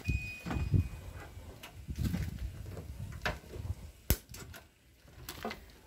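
Irregular clicks, knocks and rustling of hands working on car wiring, with one sharp click about four seconds in.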